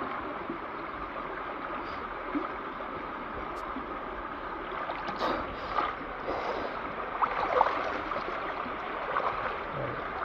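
Steady rush of running water, with a few small splashes or knocks between about five and eight seconds in.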